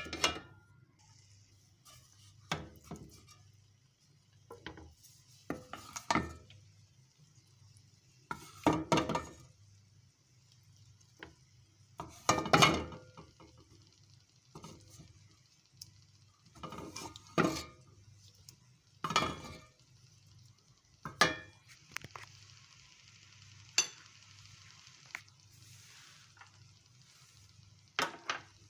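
Metal spoon scraping and clinking against pots and pans as chicken and gravy are spooned out and layered over rice, in separate clatters every second or two.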